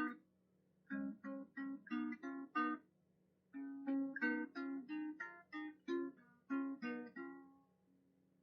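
Background music: a gentle plucked acoustic guitar melody played note by note in short phrases, with brief pauses between them.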